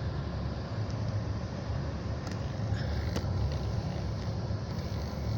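2009 Holden VE Commodore running at idle: a steady low rumble, with a few faint clicks in the middle.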